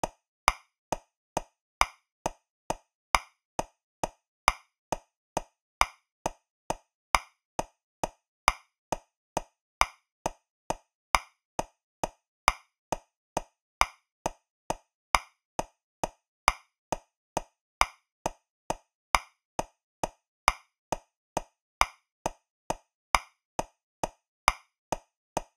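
Metronome clicking at 135 beats per minute in 3/4 time, a little over two clicks a second. Every third click is louder: the accented first beat of each bar.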